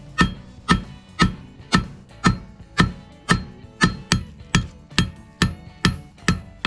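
Blacksmith's hammer striking hot steel bar stock on an anvil, forging a leaf: steady blows about two a second, each with a short metallic ring.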